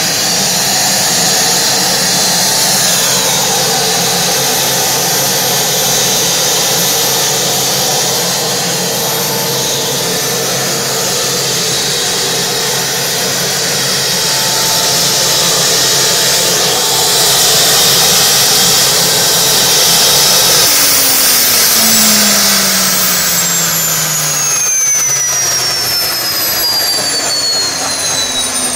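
Jet engine of the 1955 Ghia Streamline X Gilda concept car running, a loud steady whine and rushing hiss. In the last several seconds its tones fall steadily in pitch.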